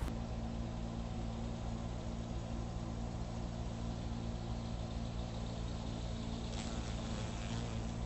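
Honeybee buzzing as a steady, low drone, with a few faint ticks near the end.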